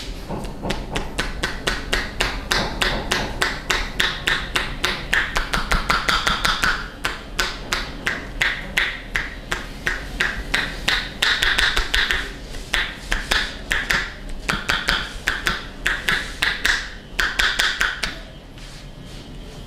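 Percussive massage: a fast, even run of slaps on the body, about five a second, with a short break about seven seconds in and a stop near the end.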